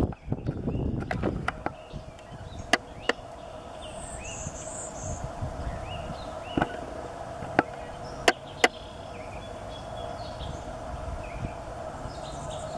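Faint buzzy song of a male Golden-winged Warbler about four seconds in: one high buzz followed by two slightly lower buzzes, over other faint birds chirping and a steady hum. Several loud, sharp clicks stand out above everything else.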